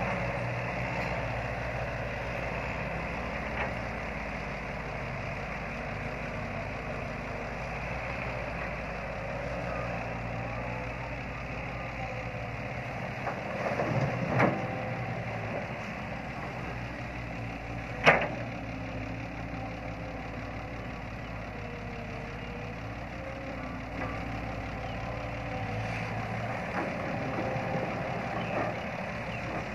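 Caterpillar hydraulic excavator's diesel engine running steadily as it digs soil and loads a dump truck, with a few sharp knocks, the loudest about 18 seconds in.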